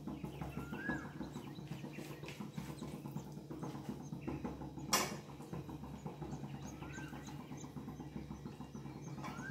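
Quiet kitchen background: a low steady hum and a few short rise-and-fall chirps, with one sharp knock about halfway through, the loudest moment.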